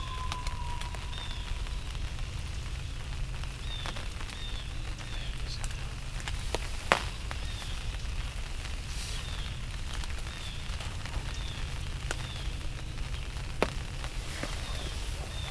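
Rain falling on the fabric of a pop-up ground blind: a steady hiss with scattered sharper drops, two louder ones about halfway through and near the end. Faint short high chirps recur throughout.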